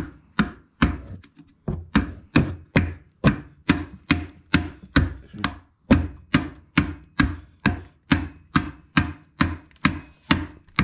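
Steady hammer blows, about three a second, driving a screwdriver into the seam of a Polaris RZR transmission case to split the case halves apart.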